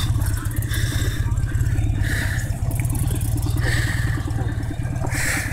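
Boat motor running steadily at trolling speed, a low pulsing drone, with three brief hissing noises over it.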